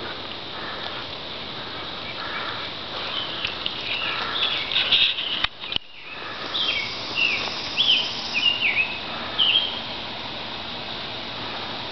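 Wild birds singing: scattered chirps, then a run of short, falling whistled notes, over a steady outdoor background hiss. The sound briefly drops out a little before halfway.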